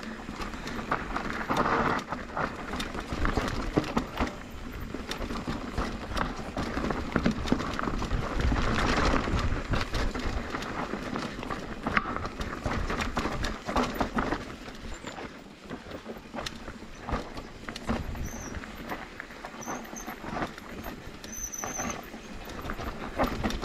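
Mountain bike descending a rough downhill trail: tyres rolling over dirt and rocks, with chain and frame rattling in constant clicks and knocks and a heavy wind rumble on the helmet-camera microphone. A few brief high squeals sound in the last few seconds.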